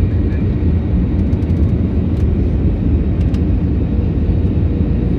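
Steady roar of a jet airliner's turbofan engine and rushing air, heard inside the passenger cabin from a window seat beside the engine. A few faint clicks are heard over it.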